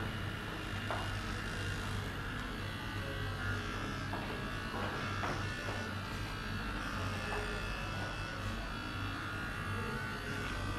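Dermaqual Forza MMS 007 motorized microneedling pen buzzing steadily as it is run over the skin of the face.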